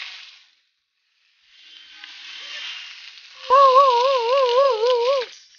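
Hissing sizzle of a small fire burning on a plastic toy truck. About two-thirds of the way in, a loud wavering, siren-like tone with a steady wobble of about four a second comes in suddenly over the hiss and cuts off abruptly.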